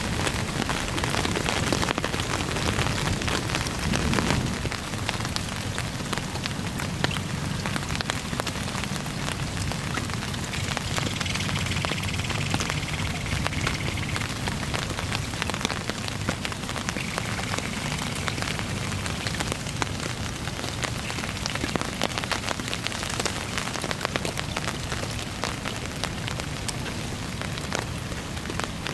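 Heavy rain falling steadily onto a river: a dense, even hiss full of sharp drop ticks.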